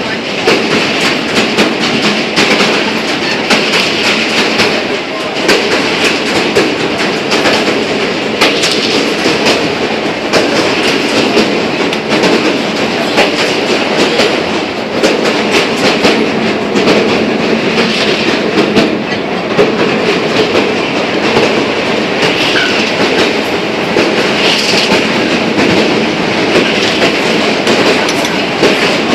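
Train running, with a steady rumble and wheels clicking over rail joints, heard from inside a carriage.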